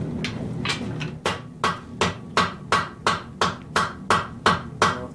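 Hand hammer striking a glowing bar of hot steel on an anvil in a steady rhythm of about three blows a second, each blow ringing. The first few blows are lighter, and the full rhythm is set about a second in.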